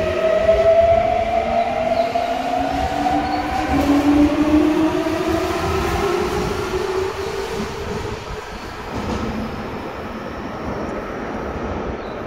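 Toei 6300-series subway train running, its GTO inverter whine rising steadily in pitch over the rumble of wheels on rail. The whine fades after about seven seconds while the running noise goes on.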